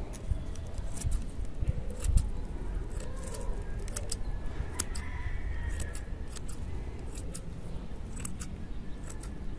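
Scissors snipping repeatedly through the dry, fibrous root mass of an Echeveria elegans being root-pruned: an irregular series of short, crisp snips.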